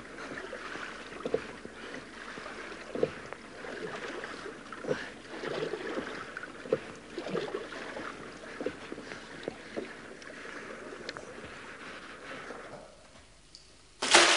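A small foil-driven catamaran worked by a hand lever: water splashing and lapping against the hull, with a knock or splash about every two seconds as each stroke is made. Near the end a sudden loud noise cuts in.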